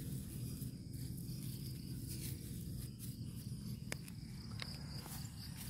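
Outdoor field ambience in a harvested rice paddy: a faint, steady high insect drone over a low rumble, with two short clicks about four seconds in.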